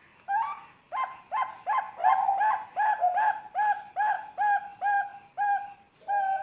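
Young Bangkok perkutut (zebra dove) cooing, a quick series of about a dozen short coos at two or three a second.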